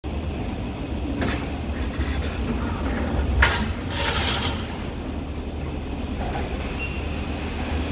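Cargo-loading machinery running with a steady low rumble, with a few sharp metallic knocks, about a second in and again past three seconds, and a short hiss just after four seconds in.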